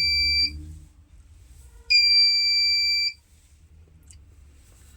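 Buzzer of a homemade laser burglar alarm beeping in a steady high-pitched tone. The alarm sounds when the laser beam falling on its light-dependent resistor (LDR) is cut. One beep ends about half a second in, and another sounds for just over a second about two seconds in.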